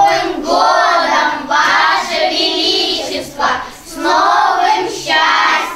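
Young children singing together, a few short phrases of a song with brief breaks between them.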